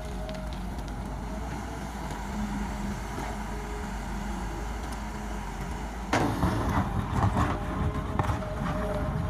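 Kobelco crawler excavator running steadily, with a constant engine drone and a steady tone over it. About six seconds in, the bucket digs into rocky soil: a louder, rough stretch of scraping and clattering stones.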